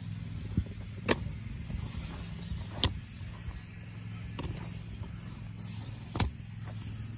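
A steady low hum from a running engine, with five sharp knocks at irregular intervals over it.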